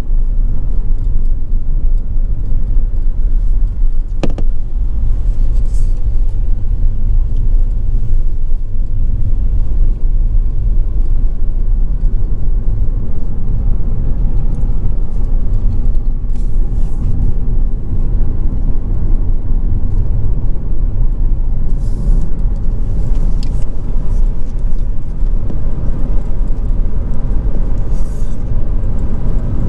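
A car driving, its road and engine noise a steady low rumble, with a few faint clicks.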